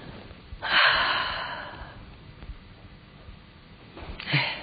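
A woman's breath between question and answer: a long audible breath starts sharply about a second in and fades away over about a second. A shorter breath follows near the end.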